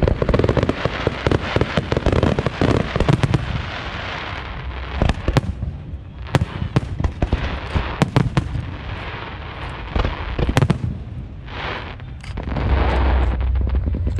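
Fireworks display: dense crackling of ground fountains with many sharp bangs for the first few seconds, then aerial shells bursting in scattered sharp bangs. A low rumble rises near the end.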